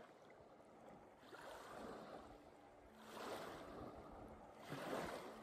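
Faint, wave-like rushing swells, three in turn, the last the loudest, with a faint low held tone underneath.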